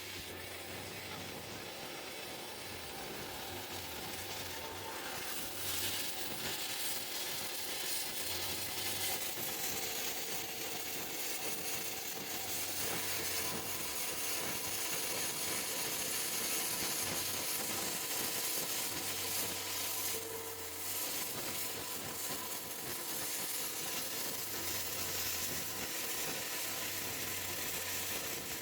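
CNC plasma cutter torch cutting metal: a steady, dense hissing sizzle, with a low hum from the machine that comes and goes.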